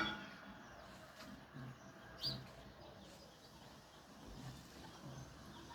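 Sparrows chirping faintly, with one short, louder chirp about two seconds in.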